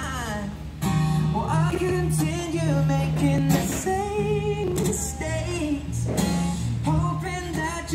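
A song playing: a voice singing a melody over guitar, bass and a steady beat.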